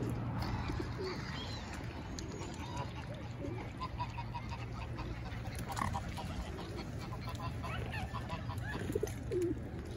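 A flock of birds calling close by, waterfowl and pigeons together: short, scattered calls over a low, steady background rumble.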